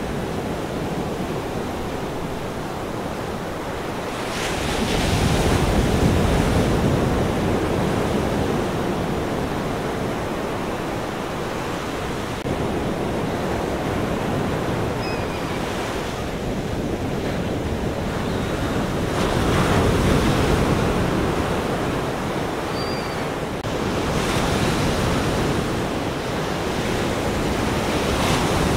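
Ocean surf: waves breaking and washing in, the steady rush swelling and falling back every several seconds.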